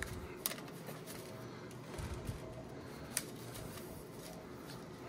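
Faint handling of a 3D-printer filament spool held in the hands, with a few light clicks, one about half a second in and one about three seconds in.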